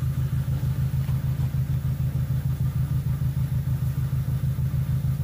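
Small tourist train's engine running steadily, with an even, rhythmic low throb.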